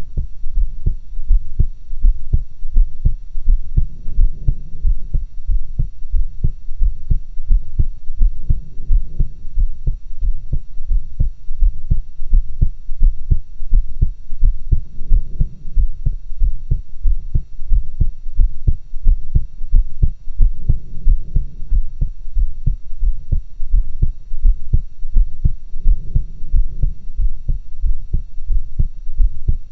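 A woman's heartbeat heard through a stethoscope: regular, steady low thumps, with a soft swell of noise about every five seconds.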